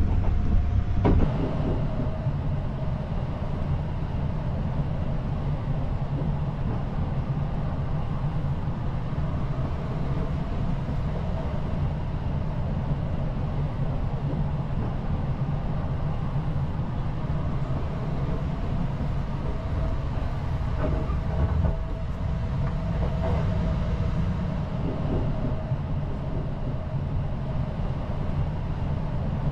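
Sunrise Izumo sleeper train, a 285-series electric multiple unit, running at speed, heard from inside the car: a steady low rumble of wheels on the rails.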